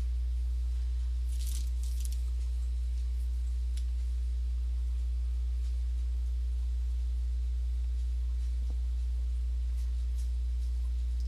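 A steady low hum with a stack of even overtones, unchanging throughout. A few faint clicks about one and a half to two seconds in.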